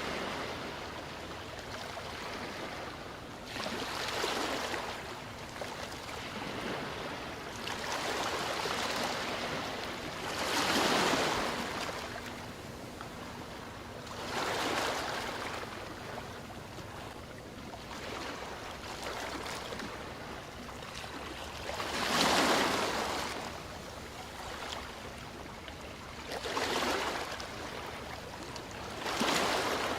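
Ocean waves washing in: about seven irregularly spaced surges of surf over a steady wash of water, the strongest about eleven and twenty-two seconds in.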